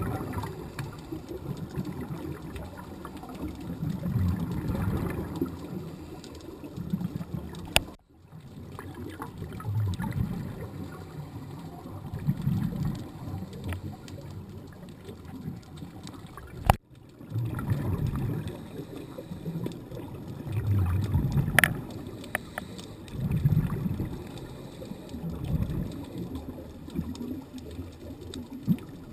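Muffled underwater water noise picked up through a camera housing: a low rumble and gurgle that swells every two to three seconds. Two sharp clicks with a brief dropout, about a third and two thirds of the way through.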